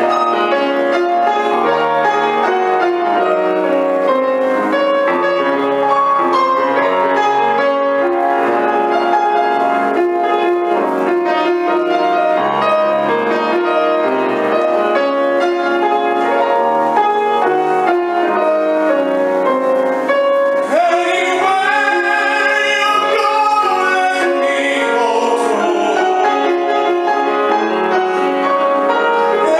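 Grand piano playing a slow passage alone. About two-thirds of the way through, a tenor voice comes in singing with wide vibrato over the piano.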